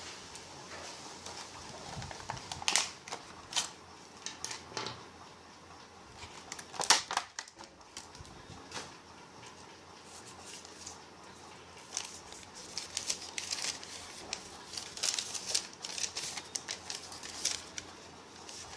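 Hands handling a hot-melt glue gun and its packaging: irregular sharp clicks and crinkly rustles. The loudest come around 3 and 7 seconds in, and a busier run of clicks follows from about 12 to 17 seconds.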